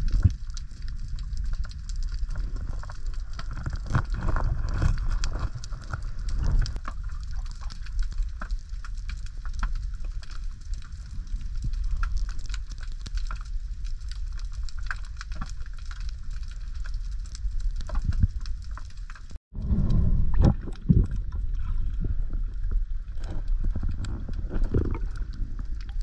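Underwater sound picked up by a diver's camera: a steady low rumble of moving water with many scattered clicks and crackles from the reef, cutting out for a moment about two thirds of the way through.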